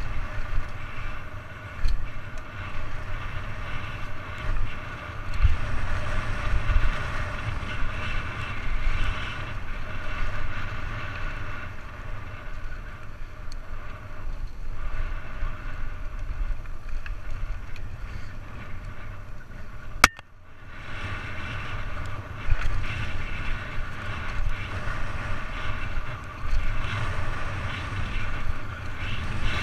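Wind buffeting the microphone of a bike-mounted or helmet camera, mixed with the rumble and rattle of a downhill mountain bike's tyres and frame over a dirt trail at speed. A sharp knock about twenty seconds in is followed by a brief lull before the rumble picks up again.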